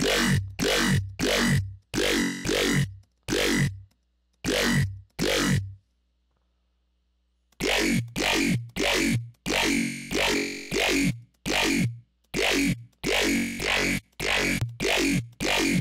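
Dubstep bass one-shot patch played on the Xfer Serum software synthesizer, triggered over and over as short hits about two a second, each falling in pitch, with a pause of about a second and a half partway through.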